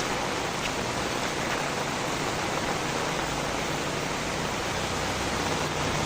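Heavy rain falling steadily, an even, dense hiss with no break. A low hum starts to rise near the end.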